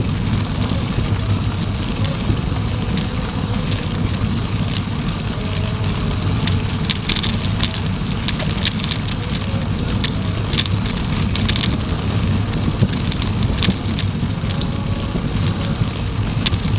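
Wind buffeting the microphone of a camera on a moving bicycle: a steady low rumble, with scattered short high ticks from about seven seconds in.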